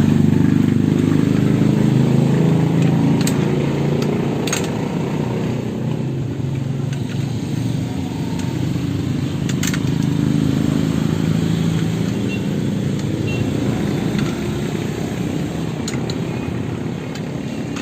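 A motor vehicle's engine running steadily, easing a little toward the end, with a few sharp clicks.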